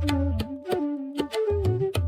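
Background music: a flute melody over a steady bass drone with a light regular percussion beat.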